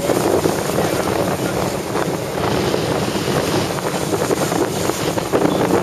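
Wind buffeting the microphone on a boat out in choppy water, over a steady rush of water.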